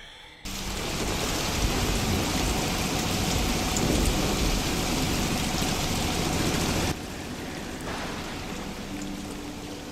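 Storm sound effect: a dense rushing noise of heavy rain with a low rumble. It starts suddenly about half a second in and drops to a quieter rain hiss about seven seconds in.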